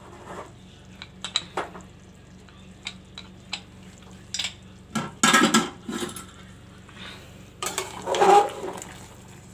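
Metal clinks and knocks from an aluminium pressure cooker and its lid as the lid is lifted off the pot: scattered light clicks at first, then louder clatter about five seconds in and again near the end.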